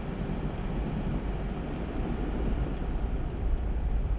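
2023 Jeep Gladiator driving off road, a steady low rumble of engine and tyre noise.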